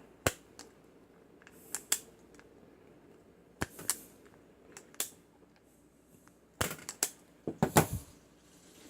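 Kseibi self-adjusting wire stripper pliers snapping shut on electrical wire as it is cut and worked: single sharp clicks every second or so, then several in quick succession near the end.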